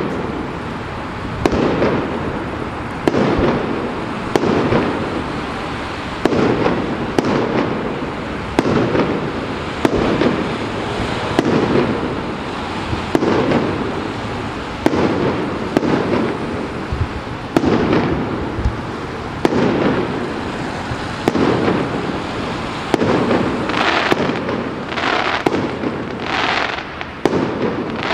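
Fireworks display: a steady run of aerial shell bursts, about one every second and a half, each a sharp bang trailing into a low rumble. Near the end, three higher hissing bursts join in.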